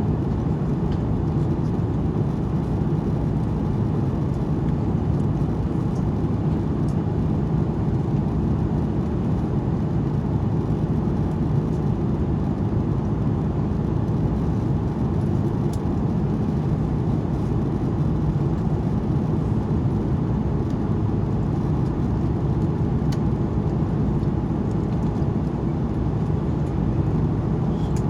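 Steady cabin noise inside an Airbus A330-200 in flight: a constant low rush of engines and airflow, with a low hum and no changes.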